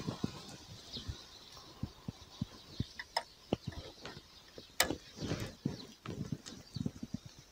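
Spinning reel being cranked at close range to reel in the line, giving a run of irregular light clicks and ticks from the reel and the hands on the rod, with one sharper click about five seconds in.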